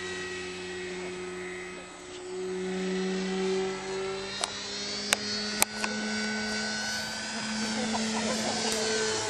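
Radio-controlled model airplane's motor and propeller running with a steady drone, its pitch stepping up slightly a couple of seconds in. Three sharp clicks about halfway through.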